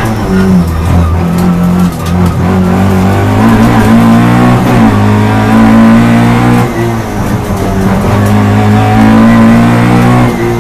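Alfa Romeo 33 race car's flat-four engine, heard from inside the cabin, running hard at high revs. The revs climb steadily and drop off sharply about two seconds in and again near seven seconds, then climb again.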